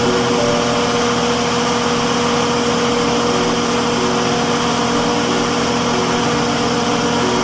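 Large generator set's engine running steadily at an even speed.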